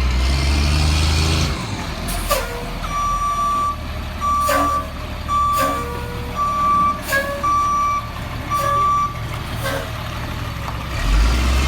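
A tow truck's reversing alarm beeping six times, about once a second, over its engine's low steady running, with a few sharp clanks in between.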